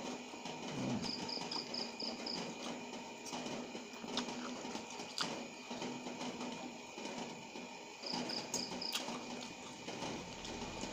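Close-up eating sounds: noodles slurped and chewed with soft mouth clicks. An insect chirps in short trains of quick high pulses, about a second in and again near the end.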